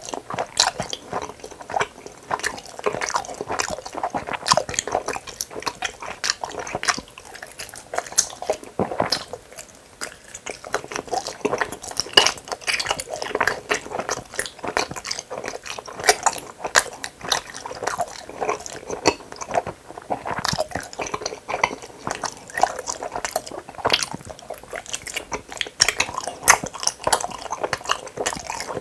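Close-miked chewing of hamburger-shaped gummy candy: a steady stream of small clicks and smacks from the mouth, with a bite taken from the gummy along the way.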